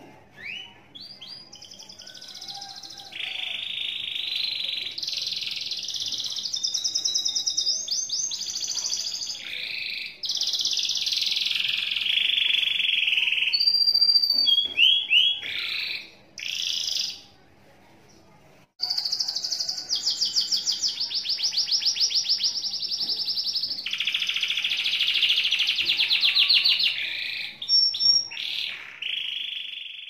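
Yellow domestic canary singing a long song of warbles and rapid rolling trills: the long 'ngekek' song valued by canary keepers. The song breaks off for a couple of seconds a little past halfway, then resumes with long, very fast trills.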